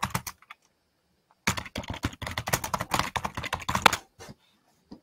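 Typing on a computer keyboard: a short run of keystrokes at the start, a pause of about a second, then a fast run of keystrokes for about two and a half seconds and a few stray clicks near the end.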